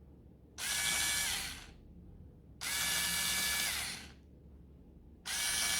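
Battery-powered electric cleaning brush switched on three times, each run lasting about a second: a steady high motor whine that winds down as it is switched off.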